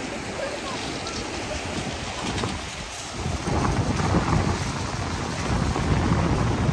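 Wind buffeting the microphone: an irregular low rumble over a steady hiss, growing much heavier about halfway through.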